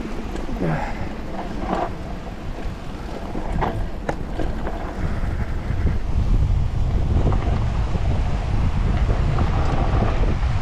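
Wind buffeting the microphone while a Focus e-mountain bike rolls down a rocky trail, with scattered rattles and knocks from the bike over the stones. The low rumble grows louder about halfway through.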